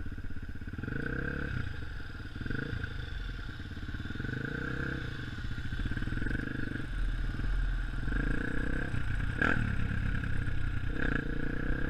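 Honda CRF150F dirt bike's single-cylinder four-stroke engine running at low speed, the throttle opened and eased off again and again. A sharp knock comes about nine and a half seconds in.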